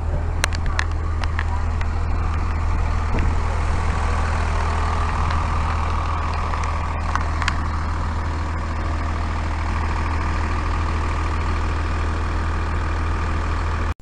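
Diesel transit bus engine, the Cummins ISC inline-six of a 2002 Blue Bird CS, idling steadily with a deep rumble. A few light clicks come in the first second or so.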